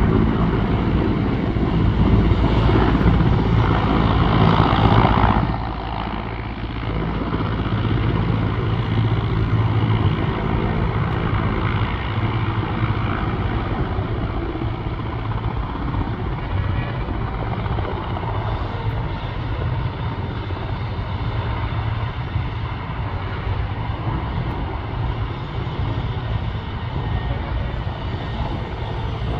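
Mi-17-type military transport helicopter running on the runway, engines and rotors turning steadily. A little louder for the first five seconds or so, then even.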